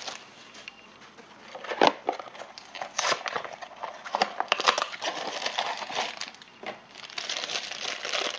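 Crinkling and crackling of a Funko Mystery Mini's foil blind bag being handled and opened, with scattered clicks and a sharp tap about two seconds in; the crinkling becomes dense near the end.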